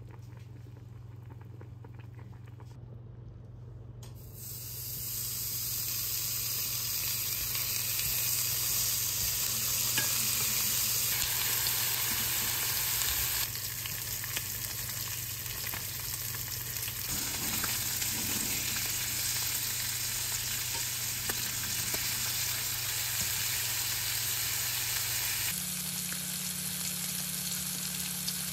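Pork belly and pork steak frying in a frying pan, sizzling with a steady, loud hiss that starts about four seconds in, after a quieter stretch with only a low hum.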